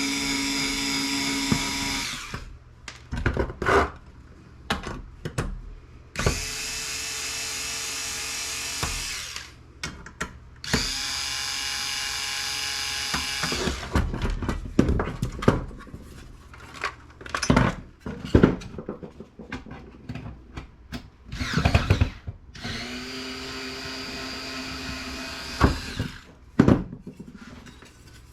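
Power drill/driver spinning out the screws of a desktop computer's steel case, four runs of two to four seconds each, with metal clicks and knocks of the case and parts between the runs.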